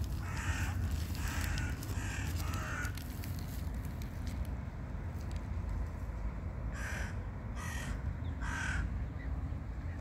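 A crow cawing: a run of three or four caws in the first three seconds, then three more, about a second apart, later on.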